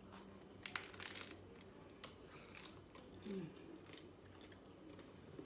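Hard corn taco shells being bitten and chewed: a cluster of loud crunches about a second in, then scattered quieter crunches of chewing.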